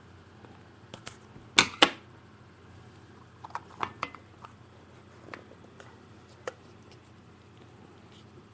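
Short, sharp taps and clicks of a cardboard trading-card box and packs being handled on a table, the loudest a close pair about one and a half seconds in, then a few lighter ones.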